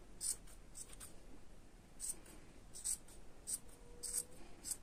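Scissors snipping yarn as a small yarn pompom is trimmed, with light rustling of the yarn: about seven short, faint, crisp snips spread unevenly.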